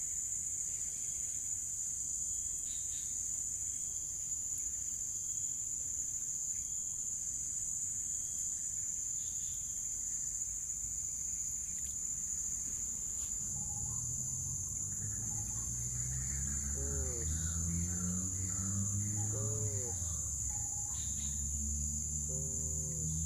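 Steady, high-pitched chorus of insects droning without a break. About two-thirds of the way through, lower pitched tones come in beneath it.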